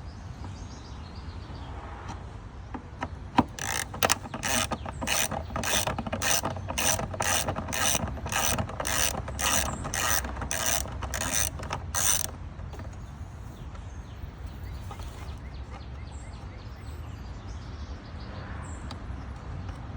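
Hand ratchet clicking in quick, even strokes, about two a second, as it backs out screws. The clicking starts a few seconds in and stops after about eight seconds.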